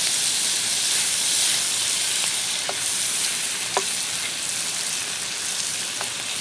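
Shrimp, corn and vegetables frying in a hot pan: a steady high sizzle with a few sharp pops scattered through it.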